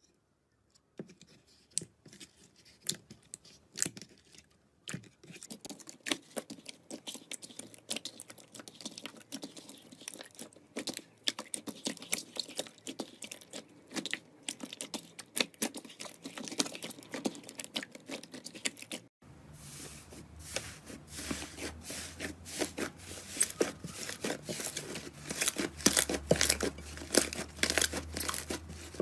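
Slime being squeezed and stretched by hand: a run of sticky crackles and small pops. About two-thirds of the way through, a cut brings a louder, denser crackling over a low hum.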